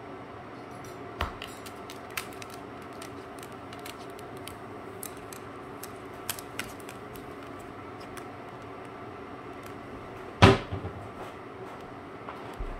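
Scattered light clicks and taps from a cockatoo moving about, over a steady low household hum, with one loud short knock about ten seconds in.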